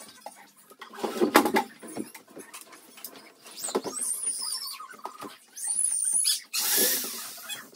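Plywood whelping-box panels and foam floor mats being handled: scattered knocks and scrapes, with short high squeaks as the wood rubs against the foam about two-thirds of the way in, followed by a longer scraping slide.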